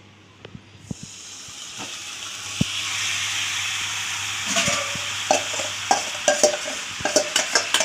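Marinated chicken pieces sizzling in hot oil in a pan, the sizzle building over the first few seconds. From about halfway, a spoon clicks and scrapes against the pan as the chicken is stirred.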